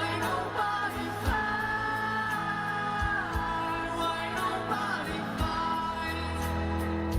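A live pop concert song: a male singer holding long, gliding notes over a band, with occasional drum hits.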